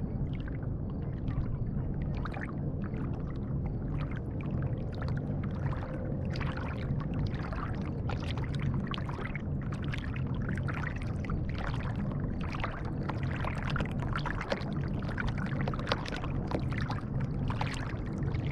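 Water lapping and splashing against a kayak's bow right at the waterline, in quick irregular splashes that grow busier after about six seconds, over a steady low rumble.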